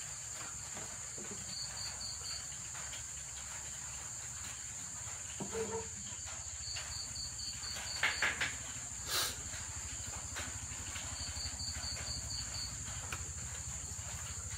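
Night insects: a steady high-pitched insect trill, with a cricket chirping in quick runs of about six pulses every few seconds. A low steady hum lies underneath, and a few brief knocks come about eight and nine seconds in.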